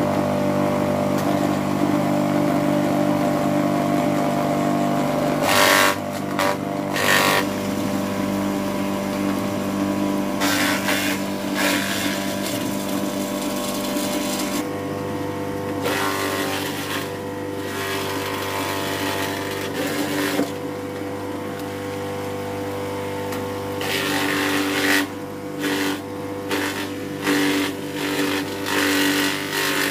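Electric forage chopper running with a steady motor hum, its blades breaking into bursts of chopping and shredding each time plant stalks are pushed into the hopper, several times over.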